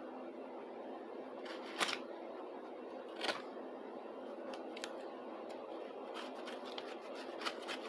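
A few faint clicks and light knocks over a steady background hum: a plastic toy garage and its ramps being handled. The two clearest clicks come about two and three seconds in.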